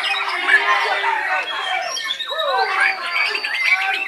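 Several white-rumped shamas (murai batu) singing at once: a dense, unbroken tangle of overlapping whistles, glides and rapid chattering phrases.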